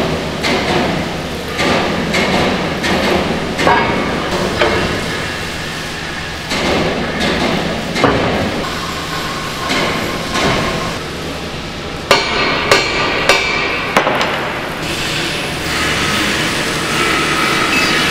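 Irregular metal-on-metal clanks and knocks as heavy steel parts of an excavator boom are positioned and struck, with a few sharp, loud strikes about two-thirds of the way through, over a steady low workshop hum.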